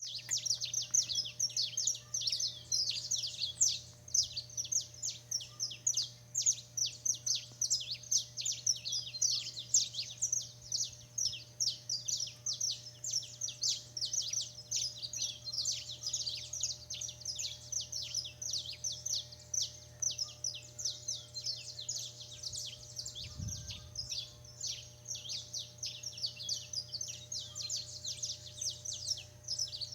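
A dense chorus of many small birds chirping rapidly and continuously, the calls overlapping. Under it runs a steady low hum, and there is one brief low thump a little past two-thirds of the way through.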